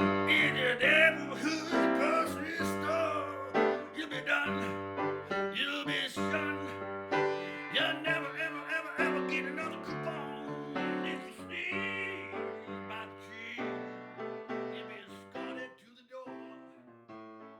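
Piano music in a blues style, with some bending melody lines over the chords. It gets gradually quieter and fades out near the end.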